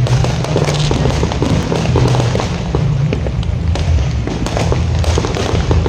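A fireworks display going off continuously: a dense run of pops, bangs and crackles with no pause, over a steady low-pitched drone.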